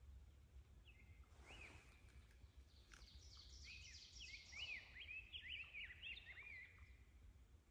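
Faint songbirds chirping and singing in spring woodland, with short quick notes that come thickest from about three seconds in. A low steady rumble runs underneath.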